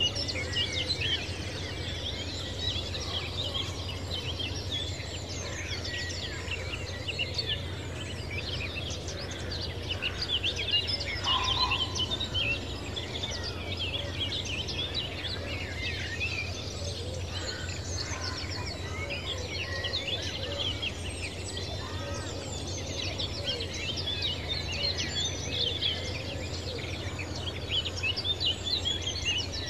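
A chorus of many small birds chirping and singing, a dense, continuous flurry of short high calls, over a steady low hum.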